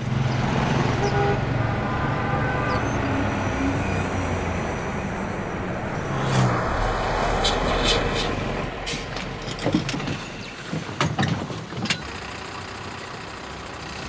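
Street traffic: motorbike and vehicle engines running and passing, then a deeper rumble as a minibus engine runs. A few sharp knocks come near the end.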